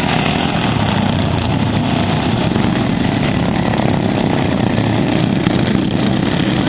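Racing lawn mower engines running at a steady, loud drone.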